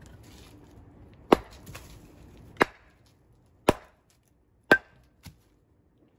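A seax chopping into a firewood log on a chopping block: four sharp strikes about a second apart, then a lighter knock near the end.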